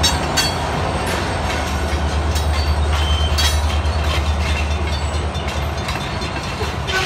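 Freight train cars rolling past, a steady rumble with irregular sharp clicks and clacks of wheels over the rail joints.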